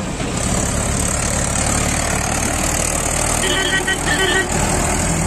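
Mahindra 575 DI tractor's diesel engine running with a fast, low beat as the tractor hauls a loaded sugarcane trolley past at close range.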